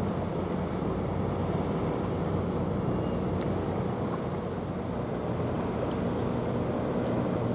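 Steady low drone of a passing container ship's engine, mixed with wind noise on the microphone.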